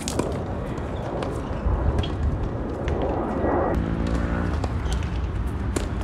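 Tennis ball being struck by racquets and bouncing on a hard court: a sharp pop right at the start, then a few fainter hits and bounces, over a steady low rumble.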